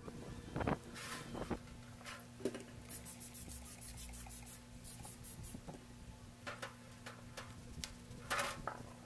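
Stiff brush scrubbing an aluminium motorcycle crankcase half in foaming engine cleaner: bursts of quick scratchy strokes, with one fast run about three seconds in and a louder scrub near the end.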